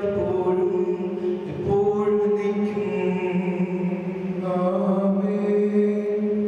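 A slow church hymn sung in long held notes, the melody moving between sustained tones.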